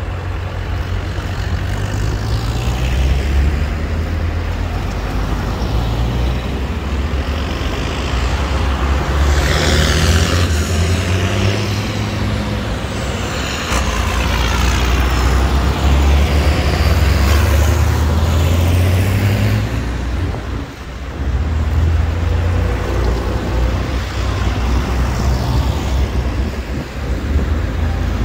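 Farm tractors driving past one after another in a procession, their diesel engines running with a low drone. The engine and tyre noise swells as each tractor comes close and fades as it goes by.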